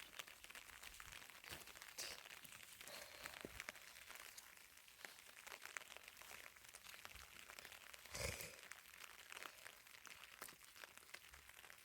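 Near silence with faint scattered rustling and crackling, and one slightly louder knock about eight seconds in.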